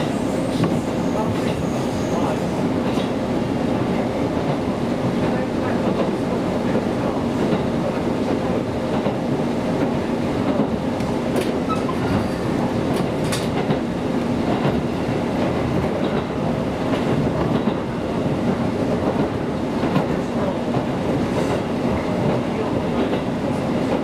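KiHa 200 diesel railcar running at steady speed, heard from inside the passenger cabin: a steady rumble of wheels on rail with a low hum and faint clicks now and then.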